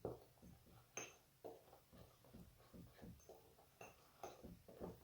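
Faint, irregular clicks and light scrapes of spoons against a small dish, with a sharper click about a second in.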